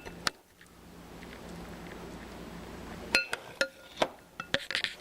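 A measuring cup and kitchen dishes clinking and knocking while a half cup of corn is measured out. A single clink comes just after the start, and a run of short ringing clinks follows in the last two seconds. A low steady hum sits underneath.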